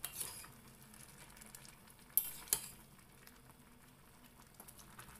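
Shrimp sour soup bubbling in a stainless steel pot while a ladle stirs the vegetables, with a few sharp clinks of the ladle against the pot, two of them close together about two seconds in.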